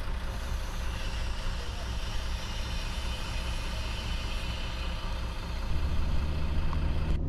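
Fiat ALn 663 diesel railcar idling steadily with a low engine rumble. About six seconds in, the low rumble gets louder.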